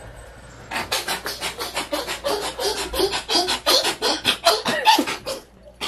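A person making rapid, breathy vocal sounds, about five short bursts a second, starting about a second in.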